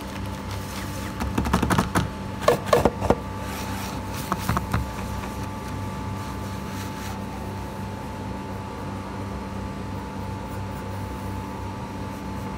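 A steady hum, with a short run of sharp knocks and rustles from paper and a notebook being handled between about one and five seconds in.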